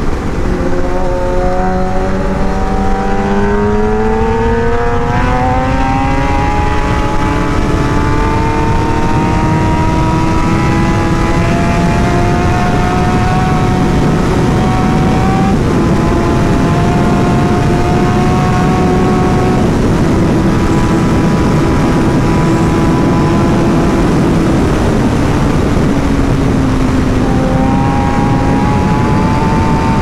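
Suzuki GSX-R 1000 inline-four heard onboard at highway speed. The engine note climbs steadily over the first ten seconds or so, then holds steady, dips briefly near the end and picks up again, all under heavy wind rush.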